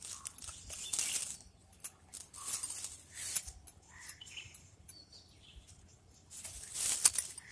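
Leaves of a potted chikoo (sapodilla) tree rustling in short bursts as a hand pushes through the branches, with faint bird chirps in between.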